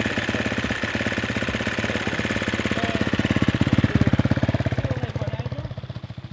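Dirt bike engine running close by with a fast, even firing pulse. It gets louder about three to four seconds in as the bike pulls away, then fades as it rides off.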